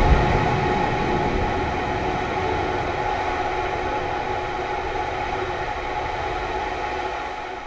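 Starhopper's single Raptor rocket engine firing during its descent to land: a steady rumbling roar that slowly grows quieter, its deepest rumble strongest about the first second.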